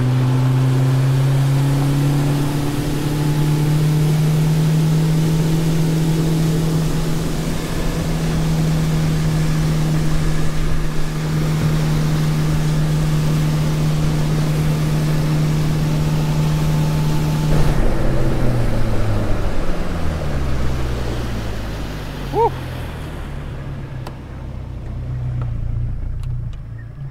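Boat's outboard motor running at speed under a rush of wind and water. About two-thirds of the way in it is throttled back, the engine note falling, and the motor runs on slowly and more quietly.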